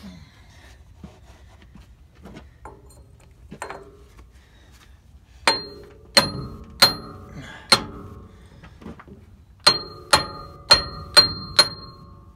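Hammer striking a steel pipe sleeve held against a Case 1660 combine's chopper bearing, tapping the bearing onto its shaft. Each blow is a sharp metallic ring: four strikes about two-thirds of a second apart starting about halfway in, a short pause, then five more in quicker succession. Faint knocks come before the strikes.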